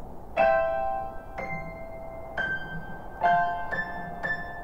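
Background music: slow piano notes struck about once a second and left to ring, coming a little closer together near the end.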